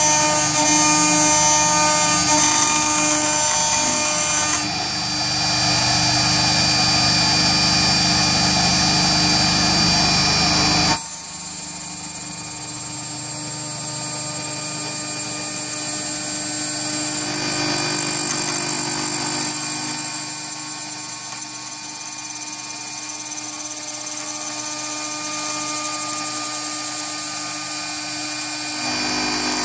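CNC router spindle running at about 18,000 rpm with a single-flute carbide endmill milling a hole in aluminium plate: a loud, steady high whine with cutting noise. About 11 seconds in, the rougher cutting noise drops away abruptly and a cleaner high whine carries on as the endmill makes a finishing pass around the hole.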